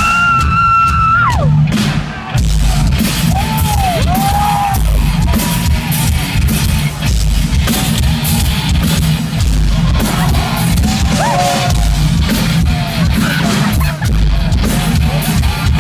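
Rock band playing live, heavy metal in style: drum kit, heavy guitars and shouted vocals. A high held note sounds in the first second and a half, then a brief break before the full band comes in.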